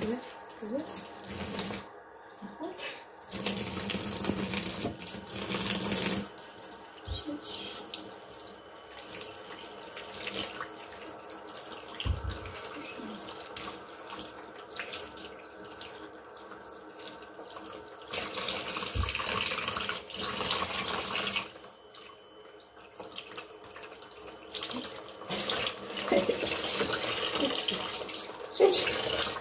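Kitchen tap running into a plastic sink basin while a wet cat is washed in it, with water splashing. The running water swells and drops back in several stretches.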